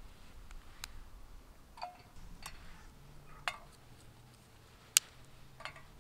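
Small dry twigs being dropped one at a time into a folding metal box stove, each landing as a light click or clink against the metal walls and grate. There are about six in all, spaced irregularly, and the sharpest comes near the end.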